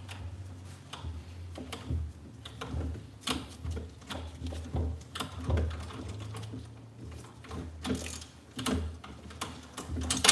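Hand ratchet clicking in short, irregular runs while an 8 mm bolt is worked out of an aluminium motorcycle engine case, mixed with light metal taps of the tool on the parts. A low steady hum runs underneath.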